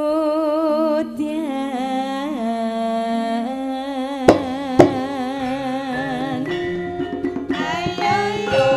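Javanese gamelan music: a sinden sings a long, wavering vocal line over held metallophone notes. Two sharp knocks come about four seconds in, then the kendhang drum and struck gamelan notes grow busier near the end.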